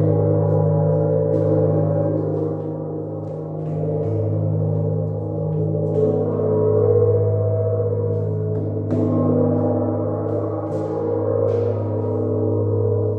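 Gong being played: a sustained low hum with many shimmering overtones that swells and ebbs, with a soft stroke about nine seconds in.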